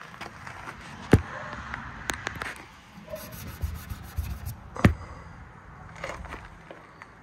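Handling noise from a phone held against a car's side window: scraping and rubbing on the glass and body, with two sharp knocks, one about a second in and one near five seconds.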